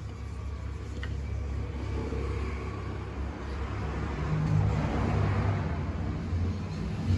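A motor running with a steady low hum and a noisy, scraping-like haze above it, growing louder about four seconds in.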